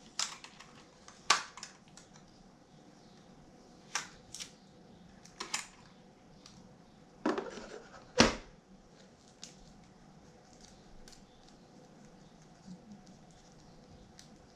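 Drone packaging and parts being handled and rummaged through: scattered clicks, scrapes and rustles, with one sharp knock a little past halfway, the loudest sound.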